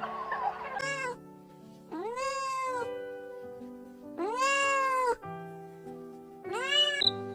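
A domestic cat meowing four times: a short meow about a second in, then three longer meows, each rising and then falling in pitch, over background music with sustained notes.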